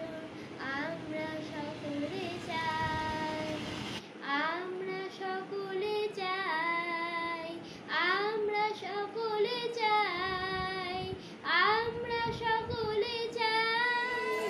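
A boy singing a song solo, holding long notes with upward slides into several of them.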